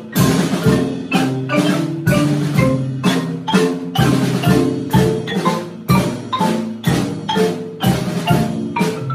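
Ensemble of marimbas and xylophones played with mallets: many struck wooden-bar notes in a melody over a steady beat about twice a second.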